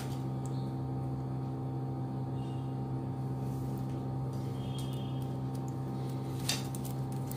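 A steady low background hum, with a faint click near the end as the plastic weaving wire is handled.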